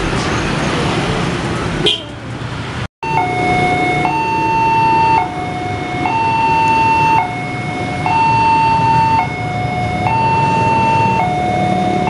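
Railway level-crossing warning alarm sounding from the pole-mounted loudspeaker as the barriers come down: two tones, high then low, alternating, each held about a second. It starts about three seconds in, after a short burst of street traffic noise and a brief break.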